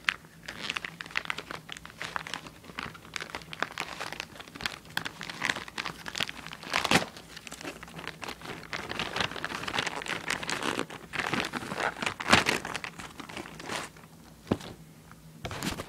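Packaging around a tablet hardcover case being crinkled and torn open by hand: irregular crackling, rustling and tearing throughout, with sharper rips about seven and twelve seconds in.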